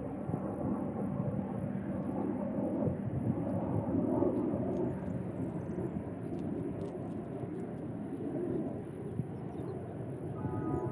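Distant low rumble of a passenger train's diesel locomotives, Amtrak ALC42 Chargers and P42s, working along the line, heard far off as a steady noise with no distinct beats.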